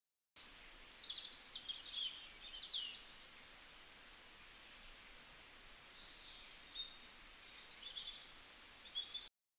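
Short, high-pitched chirps and twittering calls over a faint, steady outdoor hiss, coming in clusters near the start and again near the end.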